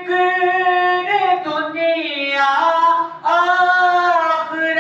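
An Urdu naat sung unaccompanied by a solo voice, drawing out long held, wavering notes, with a short breath about three seconds in.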